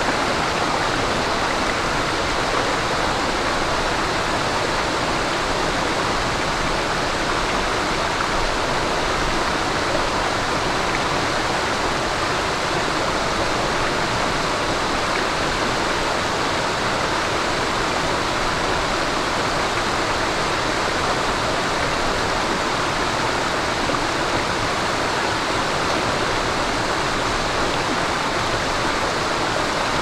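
Stream water flowing over rocks: a steady, unbroken rush and babble of running water.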